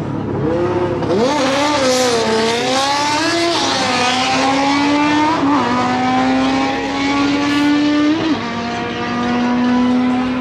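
A race car accelerating hard down the drag strip. Its engine note wavers at first, then climbs steadily through the gears, with two upshifts about three seconds apart.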